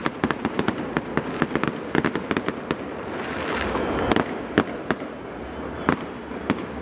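Aerial fireworks bursting: a rapid run of sharp pops and crackles from the bursting stars, with a few louder bangs about four and six seconds in.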